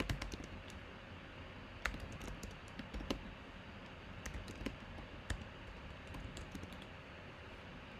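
Irregular, scattered clicks of typing on a computer keyboard.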